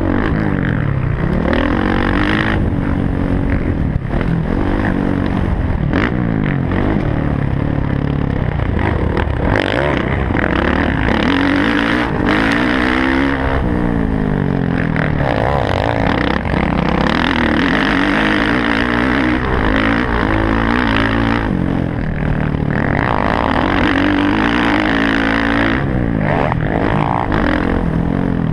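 Motocross dirt bike engine heard from a helmet-mounted camera, revving hard under acceleration, climbing in pitch through the gears and dropping back again and again as the rider rolls on and off the throttle.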